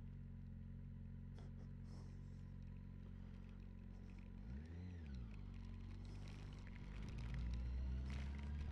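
Yamaha FZ6 motorcycle's inline-four engine running at low revs, low in level. About halfway through its pitch briefly rises and falls, and its low rumble grows louder near the end.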